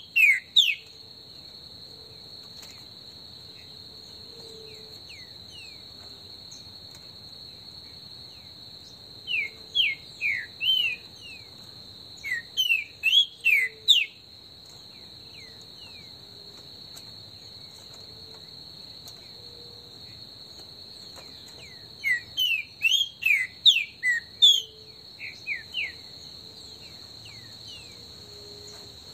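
Green-winged saltator (trinca-ferro) singing in runs of short, loud whistled notes: a few right at the start, then two longer runs about a third of the way in and near the end. Under it runs a steady high insect drone.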